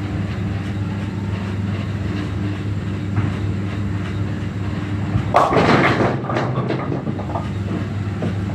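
Bowling ball striking a rack of tenpins hung on a string pinsetter about five seconds in: a loud crash of pin clatter that dies away over a couple of seconds. A steady low rumble from the bowling centre runs underneath.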